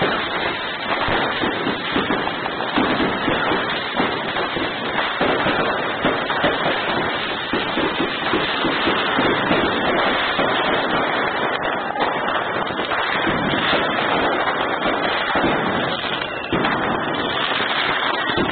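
Many fireworks going off at once: a dense, unbroken crackle of bangs and pops from aerial bursts.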